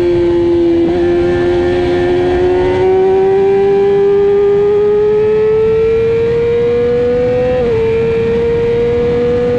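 A middleweight sportbike engine at high revs, heard from on board. Its pitch climbs slowly and steadily under acceleration, with a slight dip about three-quarters of the way through, over heavy wind rush.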